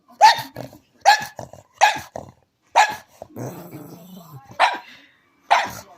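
A pug barking: six sharp barks about a second apart, with a low growl between the fourth and fifth, as it begs for food.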